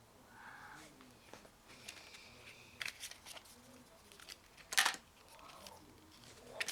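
Handling of a phone's box and packaging: a few sharp clicks and light rustling, the loudest click about five seconds in.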